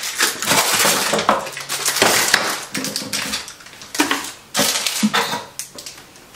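Hands rummaging through a wooden bathroom drawer: small objects and hair tools rattling, clattering and knocking against the drawer in quick, irregular clicks.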